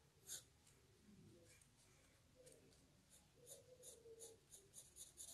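Faint scratching of a pencil on paper: a series of short, irregular shading strokes.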